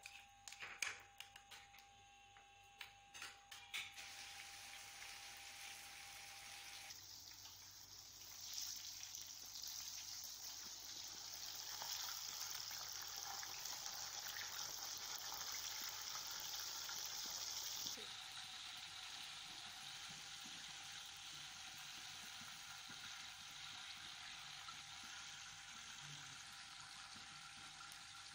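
Chapli kebab patties frying in hot oil in a small pan, a steady sizzle that is loudest through the middle stretch. In the first few seconds a spoon clinks against a ceramic bowl.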